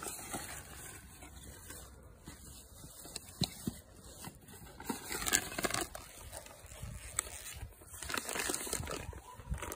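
Irregular rustling and crinkling of shredded paper filler and plastic snack packaging as a dog noses through an opened gift box, with scattered small clicks and busier bursts about halfway and near the end.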